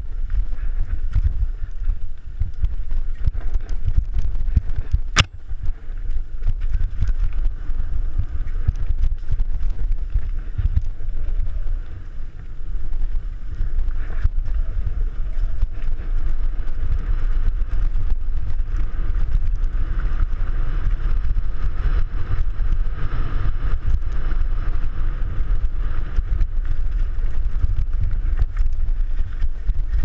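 Mountain bike riding fast down a rough dirt trail: steady wind rumble on the bike-mounted camera's microphone, with the constant rattle and knocks of the bike over roots and rocks, and one sharp knock about five seconds in.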